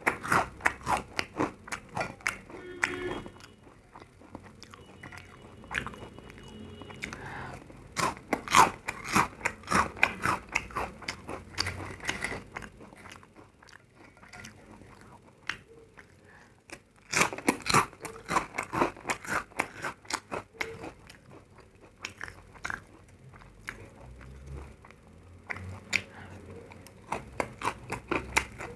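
Someone biting and chewing crunchy food: bursts of loud, sharp crunches alternating with quieter stretches of chewing.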